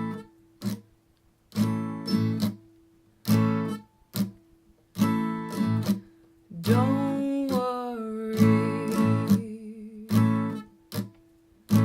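Acoustic guitar playing a slow reggae offbeat strum: short, choppy chord stabs, each cut off by relaxing the fretting hand so the strings go dead between beats. About halfway through, a voice hums a held, wavering note along for a couple of seconds.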